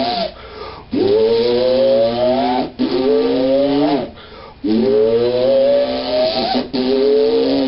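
Time machine sound effect: a pitched whoop that rises over a second or two, then drops and starts again, four times, over a low steady hum.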